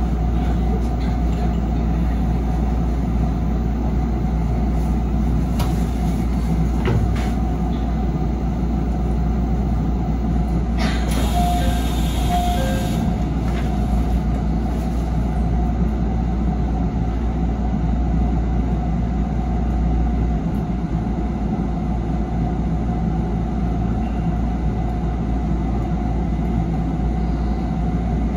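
Steady hum and rumble inside the cab of a JR 313 series electric train. A brief hiss and a few short beeps come near the middle.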